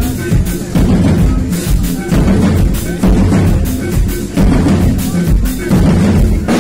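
Live music played on two drum kits together: kick drum, snare and cymbal strokes in a busy, steady groove.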